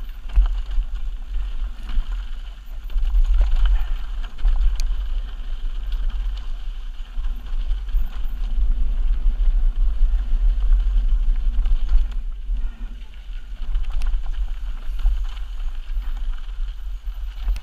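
Mountain bike descending a rough dirt singletrack, heard from a rider-mounted camera: heavy wind rumble on the microphone, rising and falling with speed, with occasional clicks and rattles from the bike over the trail.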